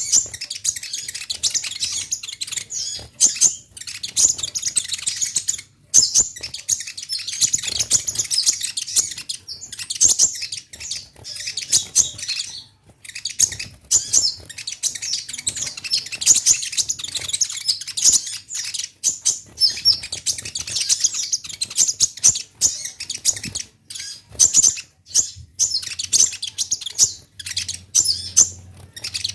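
Kolibri ninja sunbird singing hard, a dense run of rapid, high-pitched chirps and twitters with only brief pauses. This is the full, excited 'gacor' song.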